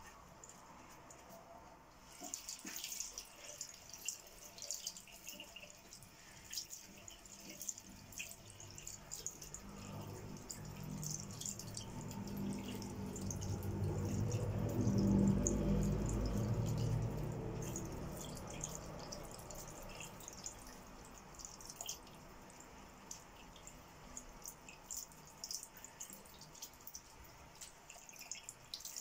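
Tap water running and splashing in a sink over hands that rub and crush a wet common dock leaf, with many small wet crackles and drips. A low rumble swells up in the middle and fades again.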